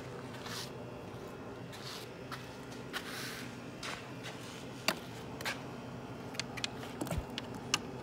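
Scattered light clicks and taps of hands and a hand tool working around an outboard engine's wiring and fittings, several close together near the end, over a faint steady low hum.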